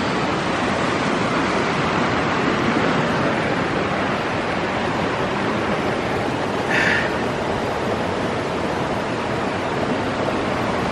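A creek running steadily, an even rush of water. A brief, higher-pitched sound comes about seven seconds in.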